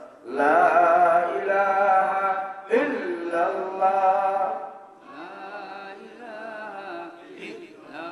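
A man chanting unaccompanied in Arabic, a devotional melody sung in long, drawn-out wavering phrases. Two loud phrases are followed by a quieter one from about five seconds in.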